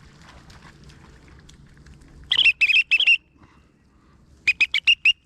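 Two quick runs of short, high-pitched peeping calls, four notes and then five, loud and close.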